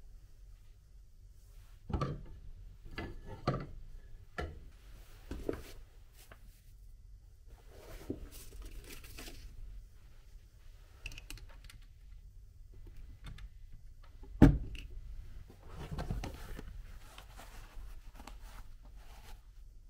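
Handling noise in a wooden cupboard: a series of sharp knocks and taps of objects against the wood, with paper and fabric rustling in between. The loudest knock comes about two-thirds of the way through.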